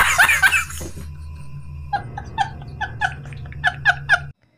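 A man laughing hysterically. Loud rhythmic laughter fades out in the first second, then from about two seconds in comes a quick run of short, high-pitched gasping bursts of laughter, about three or four a second, which stops abruptly near the end.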